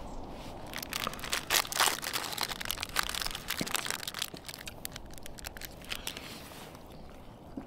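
Plastic film wrapper of a triangular rice ball (onigiri) crinkling and tearing as it is peeled off by hand, in quick irregular crackles that start about a second in and thin out near the end.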